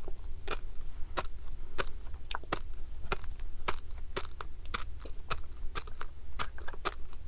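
Close-miked chewing of fish roe: sharp little pops and crunches about two or three times a second as the eggs burst between the teeth, over a low steady hum.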